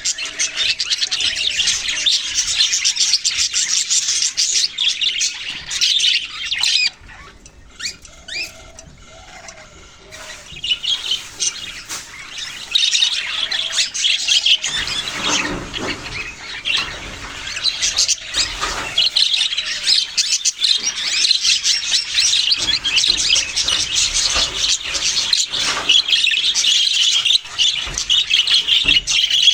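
Budgerigars chirping and chattering in a busy, continuous stream of fast high chirps, with a brief lull about seven to ten seconds in.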